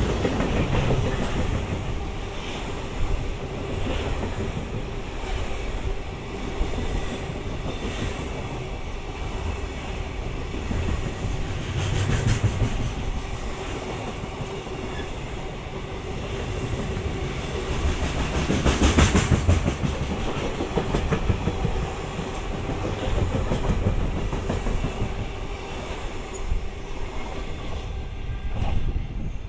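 Freight train's wagons rolling past at speed, wheels clattering over rail joints in a continuous run of clicks over a steady rumble. The clatter swells twice, near the middle and more strongly about two-thirds of the way through.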